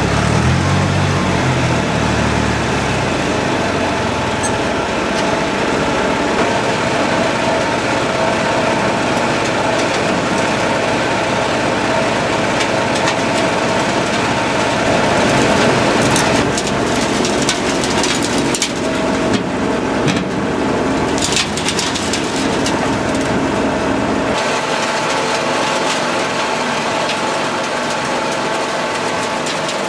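Earth-screening plant at work: engines and a vibrating soil screen running steadily, with loose soil poured from a forklift bucket into the machine's steel hopper in the middle stretch. About two-thirds of the way through the low engine rumble drops away, leaving the rattle and hum of the screen and its conveyor.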